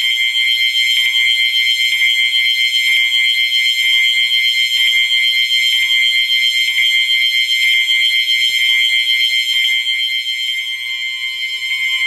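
Fire alarm horns sounding continuously with a high, fast-buzzing electronic tone: the system is in alarm after the pull station was pulled, with its signal circuits set to continuous.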